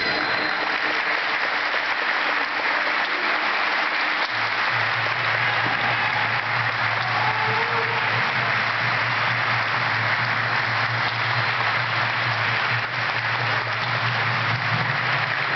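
Arena crowd applauding steadily, with a low steady hum joining about four seconds in.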